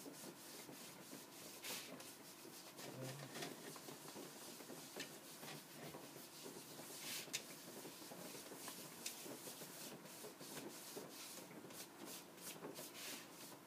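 Cloth pad rubbing wax mastic into a thin sheet of wood veneer: faint, irregular scuffing strokes of cloth on wood.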